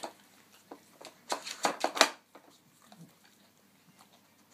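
Plastic clicks and knocks as a dog noses at the sliding drawers of a Nina Ottosson Dog Casino puzzle toy: several in the first two seconds, the sharpest knock about two seconds in.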